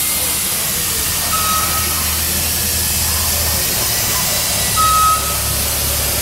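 Boat factory floor noise: a loud, steady hiss over a low hum, with a short high electronic warning beep twice, about three and a half seconds apart.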